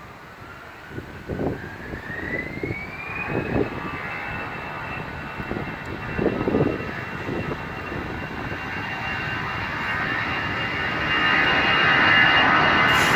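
Airbus A320 jet engines spooling up for takeoff: a whine that rises in pitch over the first few seconds, then holds steady while the engine noise grows steadily louder. Gusts of wind buffet the microphone in the first half.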